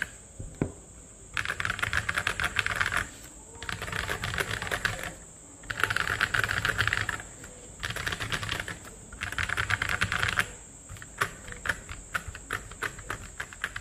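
Mechanical keyboard typing on stock Glorious Panda tactile switches in a KBD67 Lite R2 with MT3 keycaps: runs of fast keystrokes a second or two long with short pauses between them, then slower, separate keystrokes near the end.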